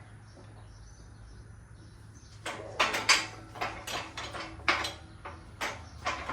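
A strut assembly being handled and set into a spring compressor: a run of metal clanks and knocks, some with a brief ring, starting about two and a half seconds in over a faint steady low hum.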